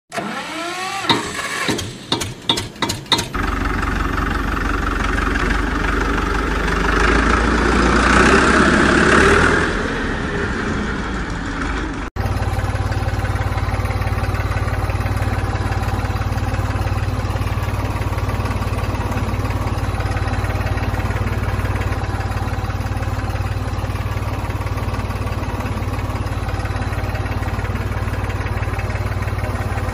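Tractor engine starting with a few sharp sputters in the first three seconds, then running steadily with a low rumble, a little louder for a while about eight seconds in. The sound breaks off abruptly about twelve seconds in and resumes at once, running steadily.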